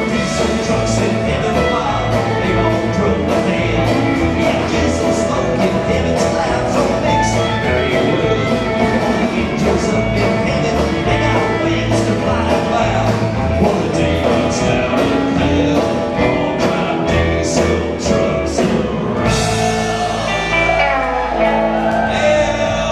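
Live country band playing a fast song on fiddle, upright bass, acoustic and electric guitars and drums. The drum beat stops with a crash about three-quarters of the way through, and the final chord rings out with sliding notes.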